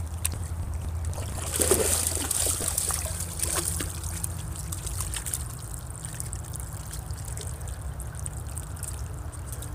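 A dog wading and splashing in shallow creek water, with the loudest splashing about two seconds in, over a steady low rumble.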